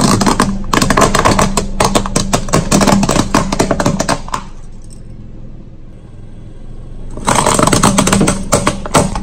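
Car tyre rolling over a stack of plastic straws, the plastic snapping and crackling in rapid, dense cracks. There are two spells of cracking, the second starting about seven seconds in, with a low hum beneath.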